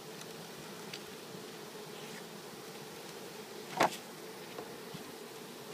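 Mass of Carniolan honeybees from a package buzzing in a steady hum, with one sharp knock about four seconds in.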